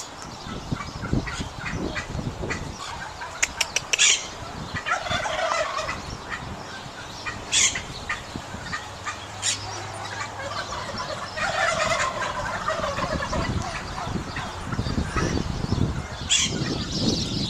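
Domestic turkeys gobbling: two long falling gobbles, about five seconds in and again about twelve seconds in, among short sharp bird calls.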